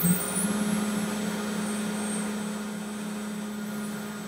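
CNC router running with its HSD spindle up to speed: a steady hum with a constant hiss, the hum settling a little higher in pitch about half a second in.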